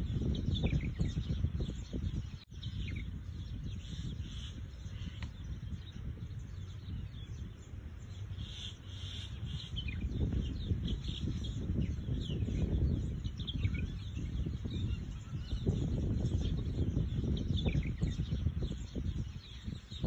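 Small birds chirping and twittering over and over, with a low rumbling background noise underneath.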